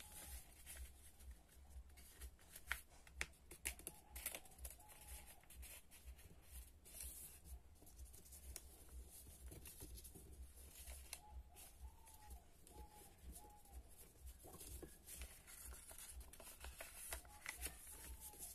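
Faint rustling and crinkling of a sheet of paper being folded and creased by hand, with scattered small taps and crackles.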